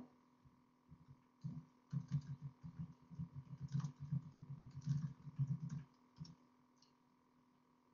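Faint, irregular tapping of a computer keyboard: a few seconds of soft key presses that begin about a second and a half in and stop a little before the end.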